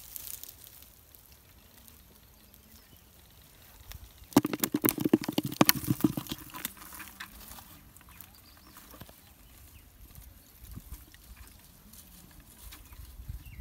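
Freshly caught catfish thrashing in a plastic bucket with a little water: a quick flurry of knocks and splashes against the bucket about four seconds in, lasting about two seconds, then a few faint thumps.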